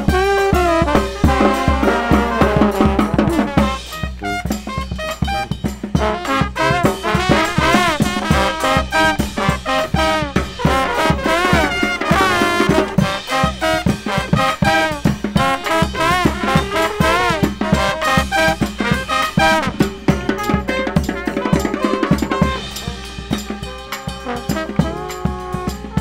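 Live New Orleans second-line brass band playing: trombones and trumpets carry the melody over a sousaphone bass line, with snare and bass drum beating steadily. The horns drop back briefly about four seconds in, then come back in.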